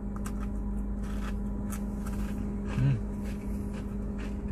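Short crisp crunches and crinkles scattered through, from a small ice cream cone that is still crispy and its paper wrapper, over a steady low hum from the running car.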